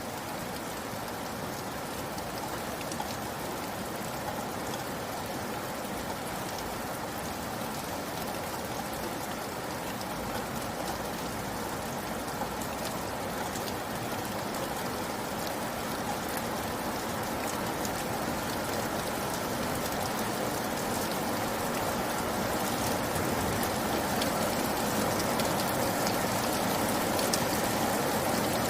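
Steady rain falling, a continuous hiss with scattered individual drop ticks, growing slightly louder toward the end.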